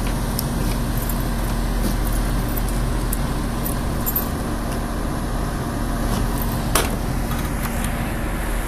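Keys jingling and clicking in the trunk lock of a 1955 Chevrolet Bel Air, with one sharp click about seven seconds in as the latch lets go. Steady background noise with a low hum runs underneath.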